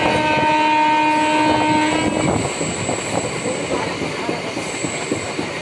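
MEMU electric passenger train running, heard from the open doorway: the wheels clatter over the rails throughout. A steady held horn sounds over the clatter and cuts off about two seconds in.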